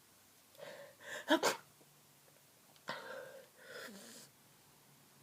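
A person with a heavily congested head cold sneezing about a second in, after a short intake of breath. Two weaker breathy sounds follow through the blocked nose.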